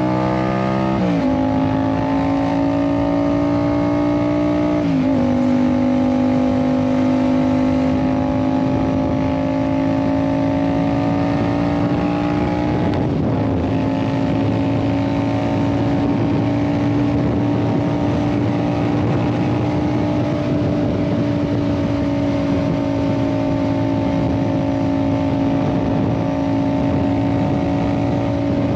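Yamaha MT-07's 689 cc parallel-twin engine, fitted with an Ixil exhaust, under way: it accelerates through two quick upshifts about one and five seconds in, the pitch dropping at each, then pulls gently and settles to a steady cruise.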